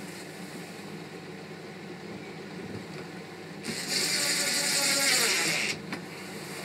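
DeWalt 18V cordless drill-driver driving a screw into a wooden batten, running for about two seconds with its pitch sinking as the screw pulls tight, then stopping with a short click. A steady low hum sits underneath.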